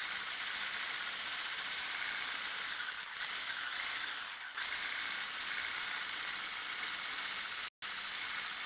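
Electric stick whisk running steadily, its wire whisk beating flour into a bowl of eggs, sugar and oil for cupcake batter, with a whirring hiss and light rattle; it cuts out for a moment near the end.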